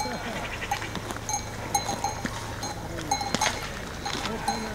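Cowbells on a herd of cattle clanking irregularly as the cows walk.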